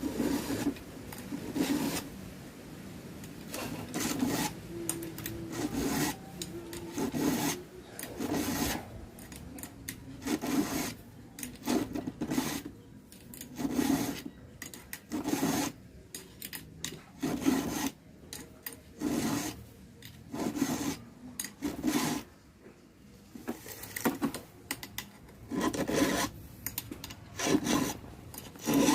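Chainsaw chain being sharpened with a hand file: repeated rasping file strokes across the cutter teeth, about one stroke every second and a half.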